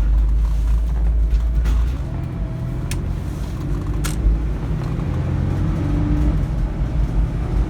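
Chevy Astro van's 4.3 litre V6 running on the road, a loud low rumble heard from inside the cab, heaviest in the first couple of seconds. The engine runs smoothly without misfires on its new cap, rotor, plugs, wires and coil. A few sharp clicks and rattles from the work van's body come through.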